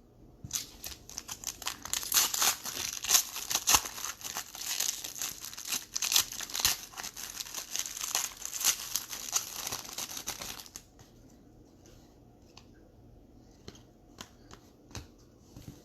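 Foil trading-card pack wrapper being torn open and crinkled for about ten seconds, then stopping, leaving only a few faint ticks.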